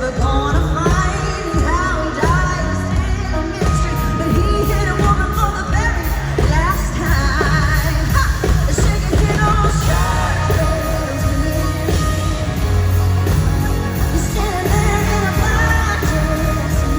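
Country-pop song performed live by a full band with a woman singing lead. The vocal line wavers with vibrato over steady drums and heavy bass.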